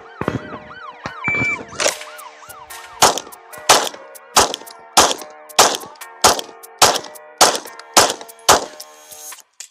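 A short electronic beep, then a string of about a dozen 9mm pistol shots from a Glock 17 fired at a fast, even pace. Under them runs a wailing, siren-like tone.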